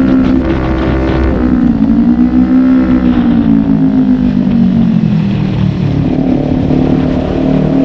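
Kawasaki Ninja 400 parallel-twin engine under way: the revs climb about a second and a half in, peak near three seconds, sink slowly as it eases off, then pick up again near the end.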